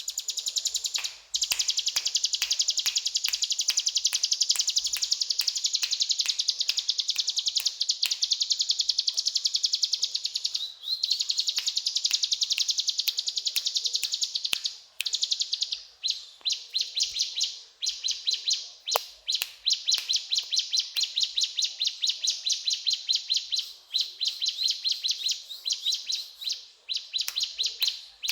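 Ciblek gunung (a prinia) singing a fast rattling trill of sharp repeated notes. The phrases run on for several seconds each, broken by short pauses.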